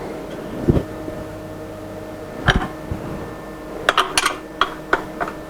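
Metal clamps and hand tools clinking and knocking on the CNC router's table: single knocks about a second in and at two and a half seconds, then a quick cluster of clinks around four seconds, over a steady machine hum.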